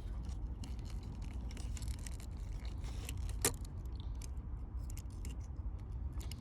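A dull knife blade scraping and sawing at a plastic zip tie, in small irregular clicks and scrapes with one sharper click about halfway through. A steady low rumble runs underneath.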